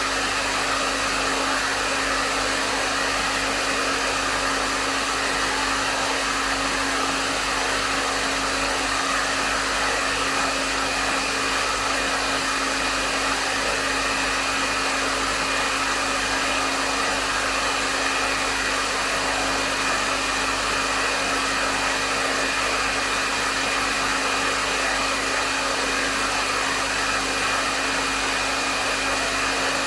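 Hair dryer running steadily, a constant rush of air with a steady motor hum and a faint high whine held underneath.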